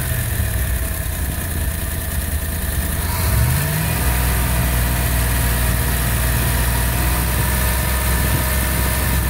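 Engine running on wood gas at a steady idle; about three seconds in its speed rises a little, then holds steady.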